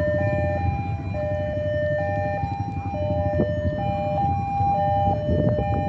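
Railway level-crossing warning alarm sounding. It gives two alternating, overlapping electronic tones, a lower and a higher note, each held a little over a second and repeating steadily, over a low traffic rumble.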